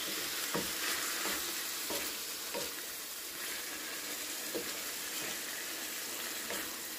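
Raw chicken breast pieces sizzling in oil in a frying pan as they begin to cook. A slotted spatula stirs them, giving several short scrapes and taps against the pan.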